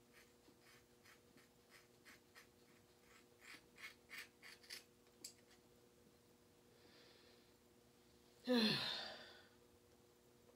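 Soft, irregular rustles of hands working through long dreadlocks, a little louder three to five seconds in. Then a breath in and a loud sigh that falls in pitch, about eight and a half seconds in.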